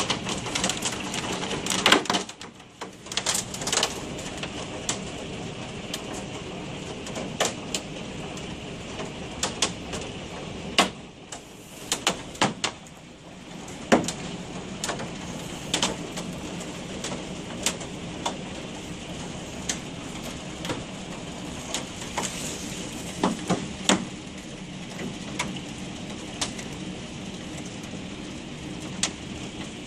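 Hailstones striking an office window: irregular sharp clicks, several a second at times, over a steady rushing noise of falling hail and rain.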